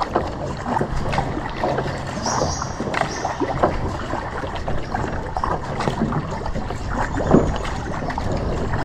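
Kayak paddle strokes: the blades dipping and splashing and water dripping and gurgling off them in irregular small splashes, over a low wind rumble on the microphone.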